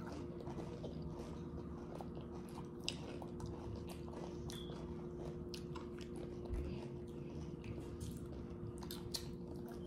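Faint chewing and crunching of a sandwich filled with Doritos, Funyuns and cheese: scattered crisp crunches over a steady low hum.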